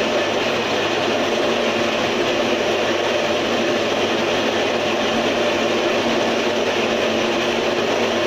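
Homemade tofu-straining machine's small electric motor running steadily, a constant mechanical hum and rattle with no change in speed.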